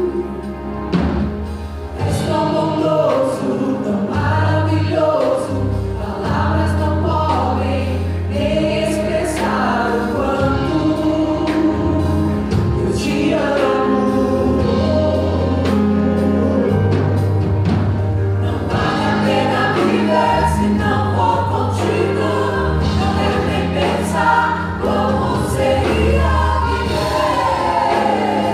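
Mixed gospel choir singing in Portuguese, backed by a live band of drum kit, keyboard and bass guitar, with held bass notes under the voices.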